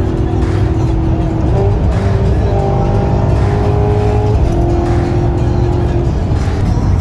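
Maserati GranTurismo's V8 running at cruising speed, engine and road rumble heard from inside the cabin, with background music playing over it.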